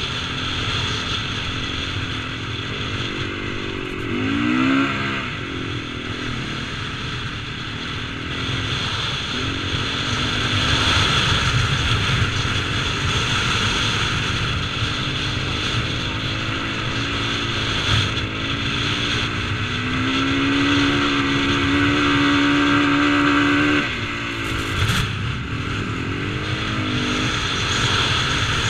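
KTM 450cc motocross bike's single-cylinder four-stroke engine running hard through soft sand, rising and falling with the throttle. There is a quick rev about five seconds in, a long steady high pull that cuts off suddenly about twenty-four seconds in, and another short rev near the end.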